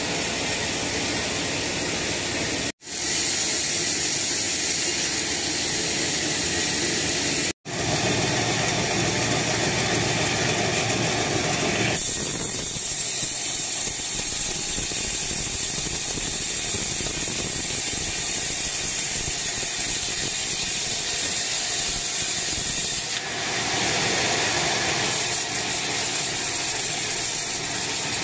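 Band sawmill running, with its blade cutting a long teak log on the carriage. It makes a steady loud mechanical noise, and from about twelve seconds in a stronger high hiss. The sound breaks off twice, for a moment each time, in the first eight seconds.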